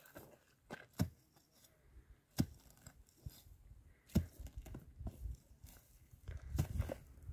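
Pickaxe blows into dry, stony ground to dig out dry desert shrubs: four sharp strikes, roughly every one and a half to two seconds, with tearing and scraping of the dry brush and soil between them.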